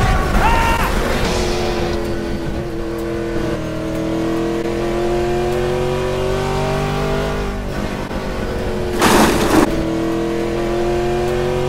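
Race car engines revving in long rising sweeps, with a short rush of noise about nine seconds in.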